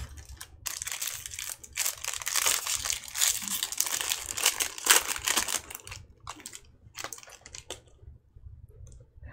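Foil wrapper of a Topps Chrome baseball card pack crinkling as it is opened and handled. The crinkling is dense for about five seconds, then gives way to a few short rustles.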